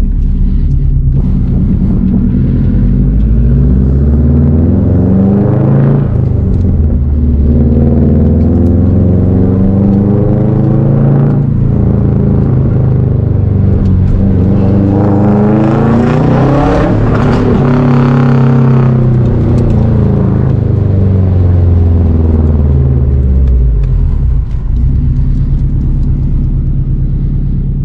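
2004 Subaru Impreza WRX STI's turbocharged flat-four engine through a Tomei aftermarket exhaust, heard from inside the car. The engine note climbs and drops again several times as the car accelerates and shifts, then settles to a steady note near the end.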